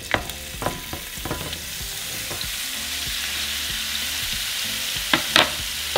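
Cubes of raw beef chuck dropping into hot oil in a frying pan and sizzling as a spatula pushes them off a cutting board, with scattered knocks and scrapes at first. The sizzle builds to a steady hiss, and two sharp taps come near the end.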